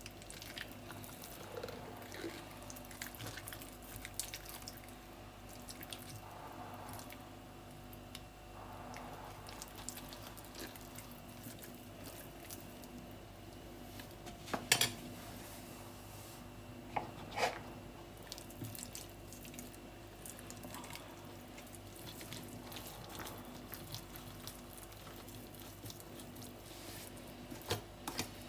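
Faint wet squishing of hands rubbing butter over the skin of a raw whole chicken, with two short sharp knocks about halfway through.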